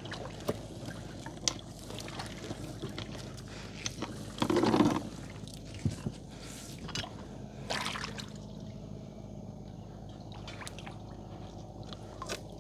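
River water dripping and splashing as a wet gill net is pulled in over the side of a small boat, with scattered small knocks and a louder splash about four and a half seconds in.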